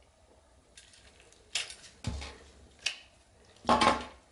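Parts of a Korky replacement toilet flush handle and trip lever being handled: a few sharp clicks and light knocks of hard metal and plastic pieces, with the loudest clattering knock near the end.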